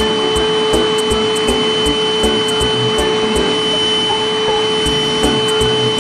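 Deerma VC20 cordless handheld vacuum running steadily with a constant motor whine while its brush nozzle sucks up spilled coffee powder.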